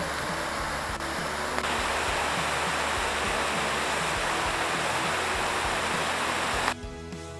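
Mountain stream rushing over rocks: a loud, steady roar of water that cuts off abruptly near the end.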